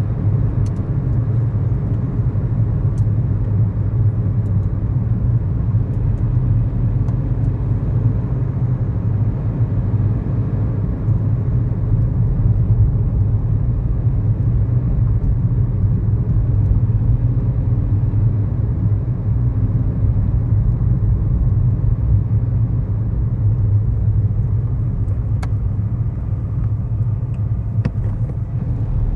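Cabin sound of a 2011 Kia Morning's 999 cc four-cylinder SOHC engine and tyre noise while driving, a steady low rumble, with a few sharp ticks near the start and near the end.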